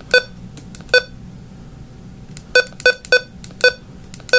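Short electronic key-press beeps from a Midland HH54 weather radio as its buttons are pressed to set the clock: about seven identical beeps, two spaced out near the start, then five in quicker succession in the second half.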